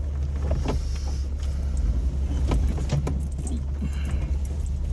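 Jeep engine running at low speed with a steady low drone, with scattered clicks, knocks and rattles over it.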